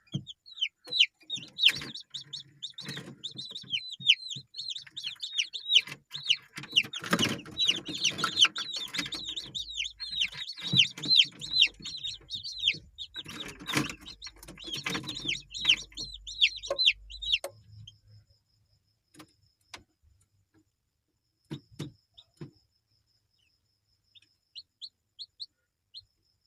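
Kampung chickens, mainly chicks peeping: a dense run of quick, high, falling chirps, with bursts of lower clucking about 7 and 13 seconds in. The peeping stops suddenly about 17 seconds in, and a few scattered chirps follow near the end.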